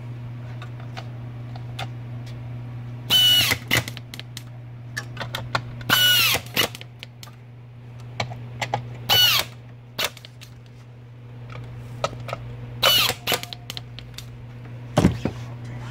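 Electric screwdriver run in four short bursts of about half a second each, its motor whine rising and falling in pitch, tightening the screws on a pump's housing.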